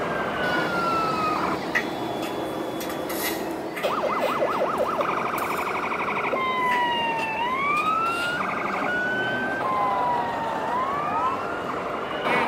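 Electronic siren sounds from model fire trucks' sound units, several at once: tones sliding down and back up in long sweeps, with a fast warbling yelp about four seconds in, over steady background noise.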